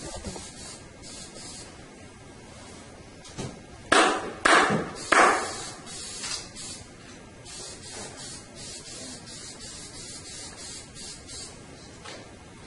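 Hands rubbing and smoothing pool table cloth down over the slate, a steady run of short scratchy strokes, with three louder strokes close together about four seconds in.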